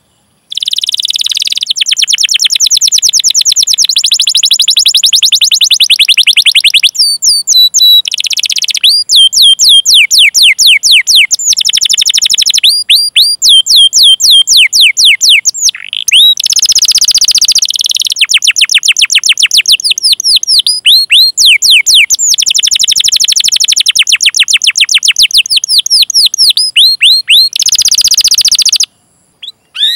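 Domestic canary singing a long, loud song of rapidly repeated high notes: fast chirping trills and rolls, phrase after phrase of rising and falling notes with only brief breaks between them.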